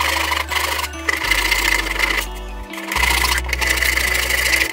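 Fine-toothed back saw cutting wood in quick strokes, in runs of about a second with short breaks, over background music.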